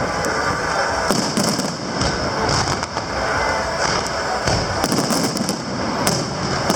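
Aerial fireworks shells bursting in a continuous barrage, overlapping booms and crackle with no pause.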